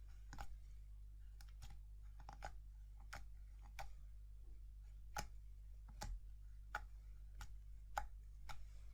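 Slime being handled and pressed, giving a run of small sharp clicks and pops, irregular, about one or two a second.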